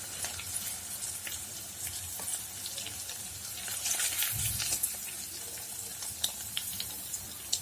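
Paneer cubes frying in hot oil in a kadai: a steady sizzle with scattered spattering crackles, and a dull knock about four seconds in.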